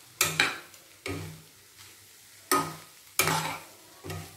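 A steel spoon and a ladle scraping and knocking against a kadai as noodles and rice are tossed together, in about six sudden, short strokes at irregular spacing.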